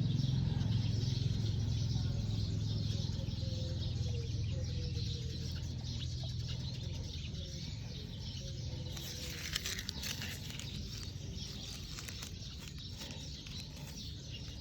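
Outdoor ambience with faint bird calls over a low steady hum that slowly fades, and a brief rustling burst about ten seconds in.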